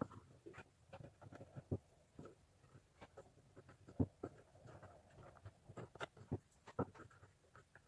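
Irregular light knocks and clicks of small wooden pieces being handled and set down, the loudest knock about four seconds in.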